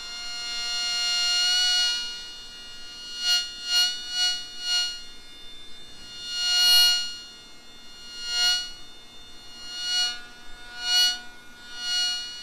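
Electromagnetic whine of a Ginour USB rotary tool's motor picked up by a single-coil guitar pickup: a steady, buzzy tone with many overtones. It swells louder and fades again about ten times as the running tool is moved close to the coil and away, loudest around the middle.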